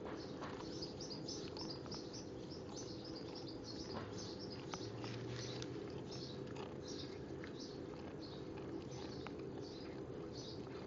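Small birds chirping in short, high notes, a few a second, over a steady low hum, with a few faint clicks.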